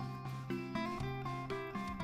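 Background music: a plucked guitar playing notes at a steady pace, about two a second.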